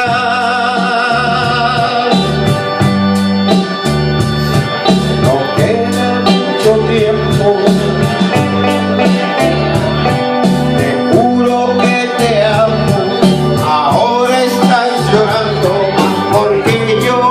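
Music: a song with sustained organ-like keyboard chords over a stepping bass line and a steady beat.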